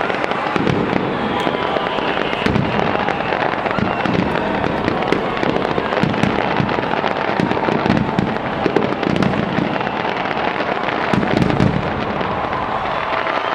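A fireworks display at full barrage: a dense, unbroken run of bangs and crackles, with deep booming thumps from the larger shells.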